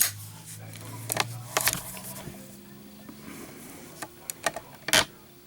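Scattered clicks and light knocks from a brass Zippo lighter being handled, a few at a time, with the sharpest click about five seconds in.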